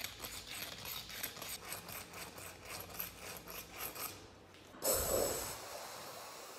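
Sandpaper rubbed back and forth by hand over a rusty metal padlock part, rasping at about four strokes a second. Near the end the sanding stops and an aerosol spray starts with a sudden burst, then hisses steadily.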